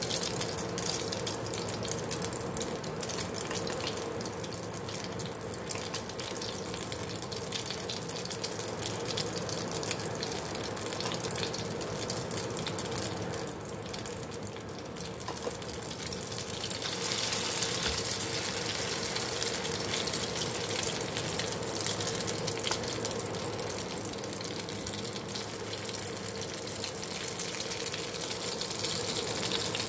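Grated potato and carrot patties sizzling steadily in hot olive oil in a frying pan, a dense, even crackle with a faint steady hum underneath.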